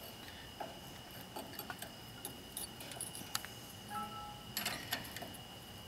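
Light metallic clicks and taps of a wrench against a brake caliper and its hose fitting. A short two-note electronic beep sounds about four seconds in, and a faint steady high whine runs underneath.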